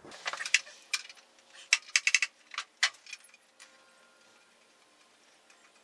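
Metal hand tools clicking and clinking on a motorcycle chain guard and its fasteners as the guard is taken off: a scattered run of sharp clicks in the first three seconds, a few in quick succession around two seconds in.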